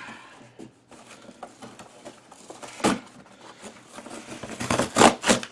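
A corrugated cardboard box being torn and wrenched apart by hand: scattered small creaks and rustles, a sharp crack about three seconds in, and a louder burst of tearing near the end.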